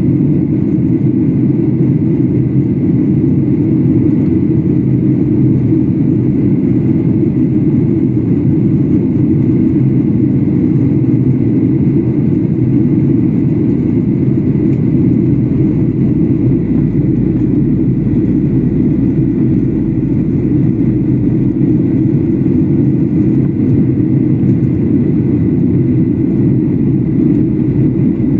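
Airliner cabin noise in cruise flight: jet engines and airflow making a deep, even rush with a faint high steady whine over it.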